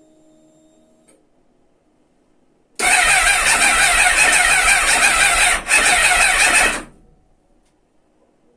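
Motorcycle starter motor cranking the sport bike's freshly reassembled engine for about four seconds, with a momentary break near the end, without the engine catching. Before it, a faint steady hum stops about a second in.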